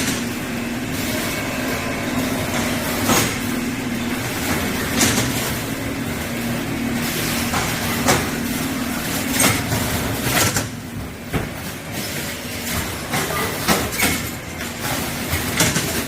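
Mung bean sprout bulk weighing and packing machine running: a steady motor hum with sharp clacks and knocks every second or two. The hum stops about ten seconds in while the knocks go on.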